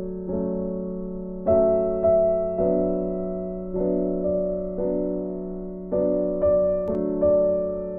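Background piano music: a slow, gentle melody, each note struck and left to fade, over a steady low held tone.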